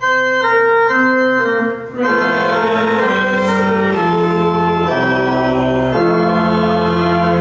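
Organ playing a short phrase of held chords. The chords change about twice a second at first, break briefly about two seconds in, then move about once a second until the phrase ends.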